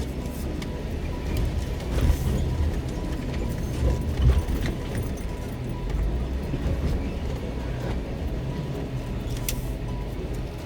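Off-road vehicle engine running at low revs, with a few sharp knocks about two seconds in, around four seconds in and near the end.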